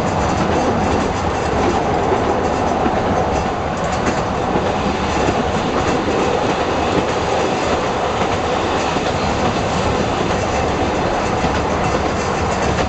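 Chemins de Fer de Provence metre-gauge diesel railcar running steadily at speed: engine and wheels on the rails, heard from inside the front cab.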